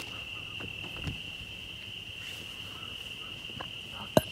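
Crickets trilling in a steady, unbroken high chorus, with a few soft scuffs and a sharp click near the end.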